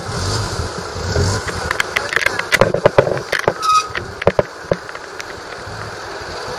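Outdoor street sound picked up by a handheld camera on the move: a steady background noise with scattered sharp clicks and knocks, most likely handling noise, and a low rumble in the first second or so.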